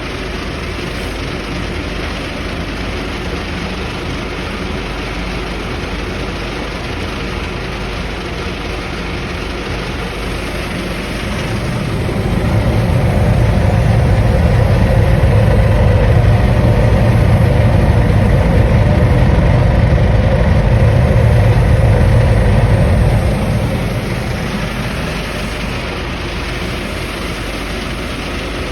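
A 36-inch vibro sifter running steadily, its vibratory motor giving a loud, continuous mechanical hum. About twelve seconds in the low hum swells louder for roughly ten seconds, then settles back.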